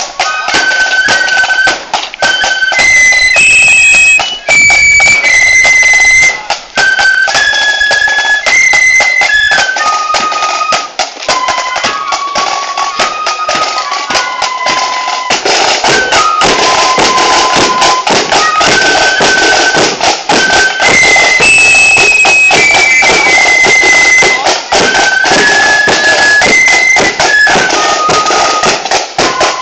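A flute and drum band playing a tune: a high melody of held notes on flutes over constant, fast drumming.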